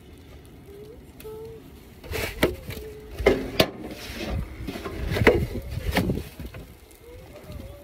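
Crunching and scraping in snow close to the microphone, with several sharp knocks, between about two and six seconds in.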